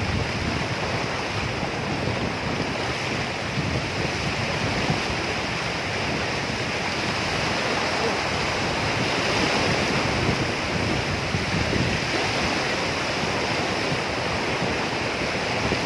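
Sea water washing and lapping at the shore, with wind buffeting the microphone in a steady rumbling hiss.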